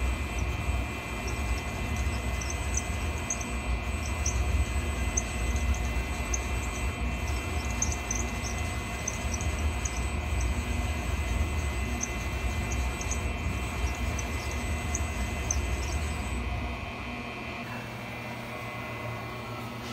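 Syil X7 CNC mill running as its table is jogged, a steady low rumble with a high whine over it. The rumble drops out about 17 seconds in, leaving a quieter hum.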